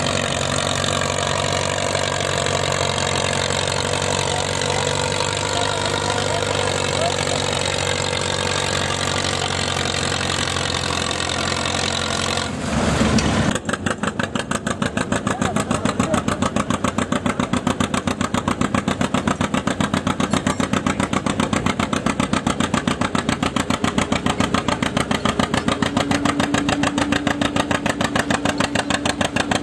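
An antique Farmall tractor's engine running steadily under load as it drags a stone boat. About 13 seconds in, the sound gives way to a John Deere two-cylinder tractor's engine, which pulls the stone boat with a fast, even popping beat.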